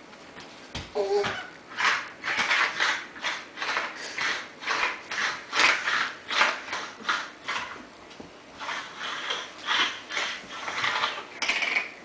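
Baby dragging herself on her belly across a hardwood floor: skin and hands scuffing on the wood in a run of short rasping strokes, about two a second, with a short pause about eight seconds in.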